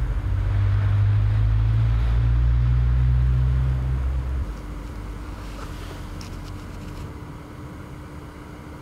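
Backpacking canister gas stove burning steadily under a lidded pot of water. A loud low rumble drops off sharply about four and a half seconds in, leaving a softer steady hiss.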